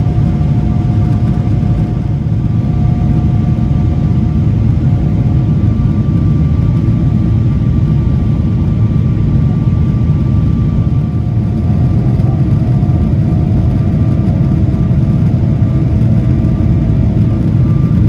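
Boeing 777-300ER cabin noise in flight: the steady rumble of the GE90-115B engines and airflow, with a faint steady whine over it.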